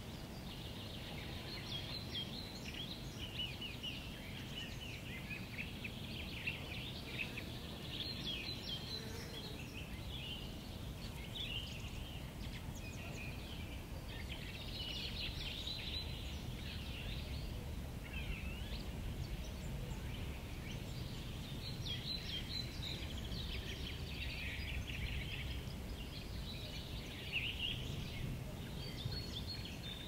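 Many small birds singing and chirping at once in quick, overlapping phrases, over a steady low rumble of wind.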